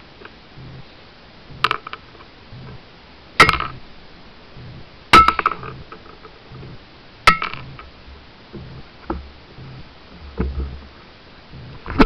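Small hard plastic Littlest Pet Shop toy figures knocking against each other and the floor as they are moved. Sharp clinks come about every two seconds, the loudest with a brief ring, followed by a couple of fainter taps.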